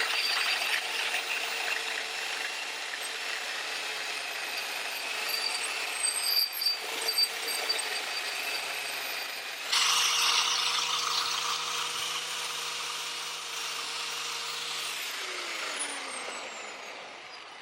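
Angle grinder running against the metal of a rusty axe head, a steady motor tone under harsh grinding noise. About ten seconds in it bites in suddenly louder, and near the end it is switched off and winds down with a falling whine.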